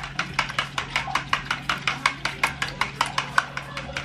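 Whisk beating an egg-and-milk wash in a bowl, clicking against the bowl's sides in a quick, steady rhythm of about six strokes a second.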